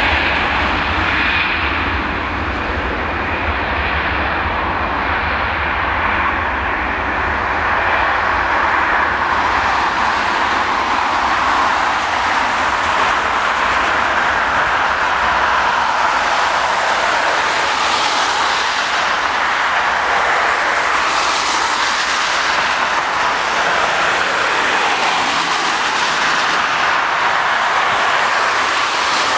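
Swiss Airbus A320-family twin-jet airliner taking off: both engines at takeoff thrust through the roll, rotation and climb-away, a loud, steady rush of jet noise.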